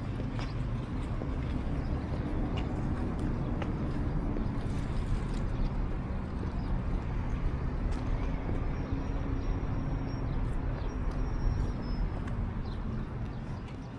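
Street traffic: a vehicle engine's steady low rumble and hum, with a few faint clicks over it.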